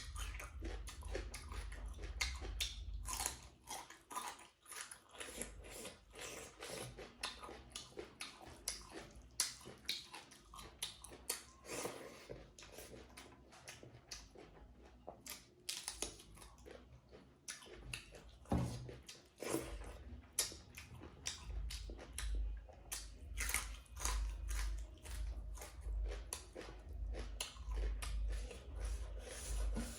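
Close-miked mukbang eating: a person biting and chewing food, with wet, irregular mouth clicks and crunches throughout. A dull low rumble pulses in and out at the start and again in the last third.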